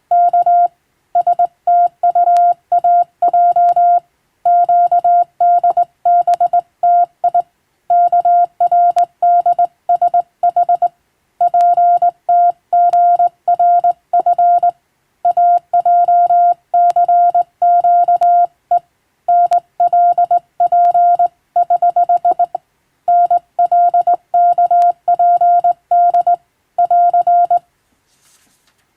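Morse code (CW) sent as a single steady tone keyed on and off in quick dots and dashes, grouped into words and letters with short pauses. The sending breaks off about a second before the end.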